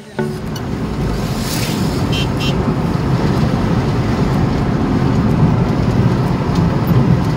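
Steady rumble of a car driving on a paved road, heard from inside the cabin: engine and tyre noise. A brief hiss comes about a second and a half in, followed by a couple of short ticks.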